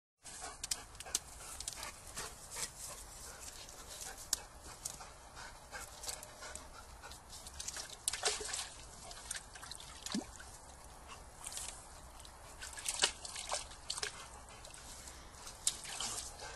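Boxer dog dabbling and splashing in the water of a stone trough with its snout and paws: an irregular string of short splashes and clicks, with a couple of brief whines about halfway through.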